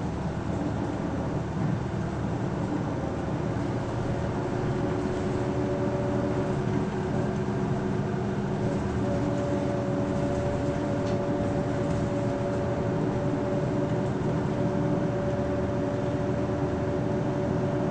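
Isuzu Erga city bus (PKG-LV234L2) with its 6HK1 straight-six diesel running on the road. A steady rumble, with an even two-note whine that comes in about four seconds in and holds.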